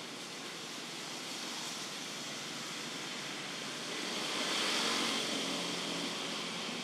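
Steady outdoor background hiss with no distinct event, swelling a little about four seconds in.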